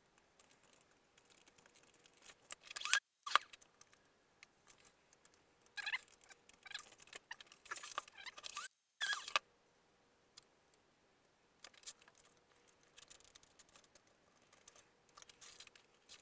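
Squeaks and scrapes of a foam model-aircraft fuselage being handled and a metal rod worked through it, in short bursts around three seconds in and again from about six to nine seconds in.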